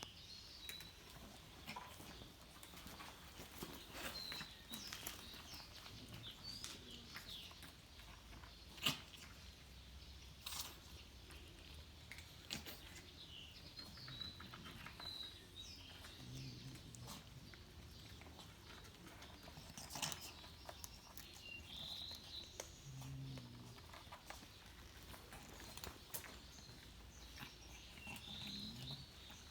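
Faint outdoor ambience with small birds chirping now and then and scattered clicks and knocks, the sharpest a single knock about nine seconds in.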